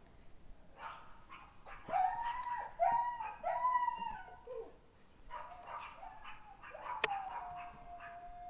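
Dog giving a run of short, high yelping barks, then a long, slowly falling whine-like howl near the end. A single sharp click comes just before the howl.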